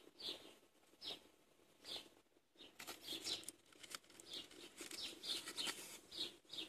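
Aluminium foil crinkling as a hand digs into a foil-wrapped wrap, most densely from about three seconds in. Short, high, falling squeaks repeat about once a second throughout.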